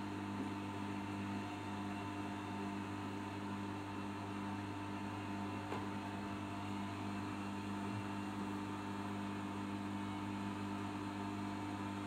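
Arçelik 5083 front-loading washing machine with its drum turning an overloaded load of mixed clothes, running with a steady motor hum.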